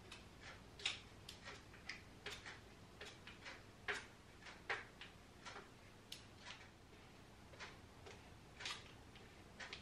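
Metal box grater scraping as a block is rubbed down its blades, about two short, faint rasping strokes a second, slightly uneven.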